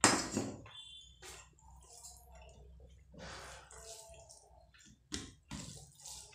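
Close-miked eating sounds: wet chewing and mouth noises from eating rice and curry by hand. A loud sharp sound comes right at the start and another about five seconds in.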